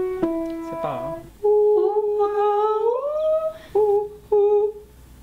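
Piano notes for about the first second, then a woman's voice humming a long held note that slides up in pitch near the middle, followed by two short hummed notes: a singing-lesson vocal exercise.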